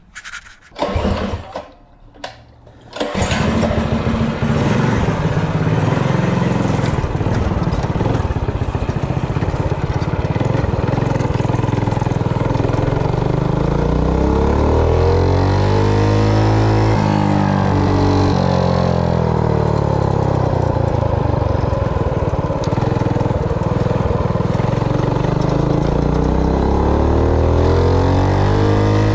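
A Predator 212cc single-cylinder four-stroke mini bike engine, fitted with a billet aluminium rod and a lighter billet flywheel. It fires in a few short bursts and catches about three seconds in, then runs steadily. Its pitch later climbs as the bike accelerates hard, drops back, and rises again near the end.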